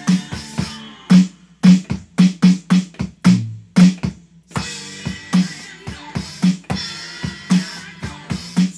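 Electronic drum kit played in a rock beat, with kick, snare and cymbals. About a second in, the cymbal wash drops out, leaving a run of separate drum strokes and a brief pause. The full beat with cymbals returns about four and a half seconds in.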